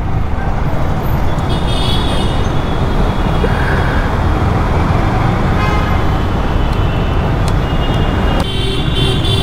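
Motorcycle riding in traffic: a steady engine and road rumble. A horn sounds briefly about two seconds in, and another horn starts near the end.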